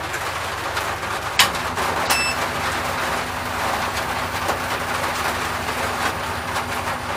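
Rain pattering on the roof and windscreen of a supercharged BMW 325i E36 Compact, heard from inside the cabin, with its M50 straight-six idling low underneath. A sharp click about a second and a half in, and a short electronic beep just after.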